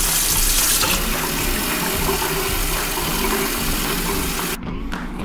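Kitchen faucet running, its stream splashing into a stainless steel sink and then filling a plastic water bottle; the rushing cuts off suddenly near the end.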